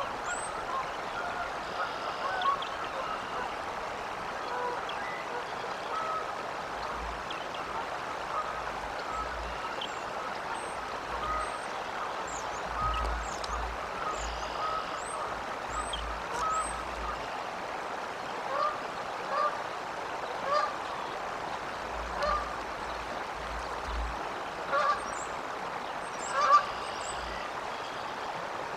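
Honking bird calls, repeated about half a dozen times in the second half, over a steady rush of flowing water, with high, thin chirps of small birds scattered through.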